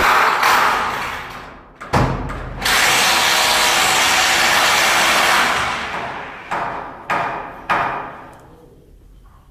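Power tool running in two long bursts, the second starting with a sharp knock about two seconds in, then three short bursts in quick succession near the end.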